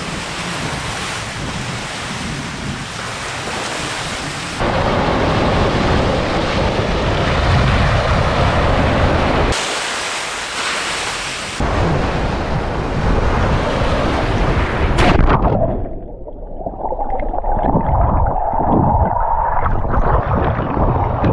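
Wind buffeting the microphone over waves washing on the shore, a loud rumbling rush that changes abruptly several times as shots are cut together.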